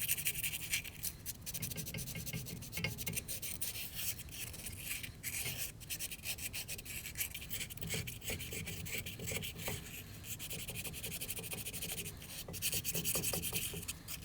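Rust being scrubbed off a car's brake caliper by hand with rapid back-and-forth scraping strokes, cleaning the pad contact surfaces so the new pads seat evenly.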